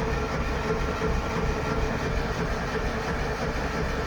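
Morris Minor's A-series four-cylinder engine cranking steadily on its starter motor with the spark plugs removed, for a compression test on cylinder 4.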